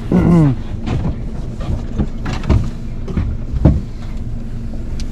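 On-deck sounds of a small fishing boat: scattered knocks and taps of gear against the hull over a steady low hum and wind rumble on the microphone, with a brief vocal exclamation right at the start.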